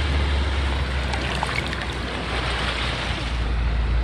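Steady wind and water noise on an open boat, with a constant low rumble underneath.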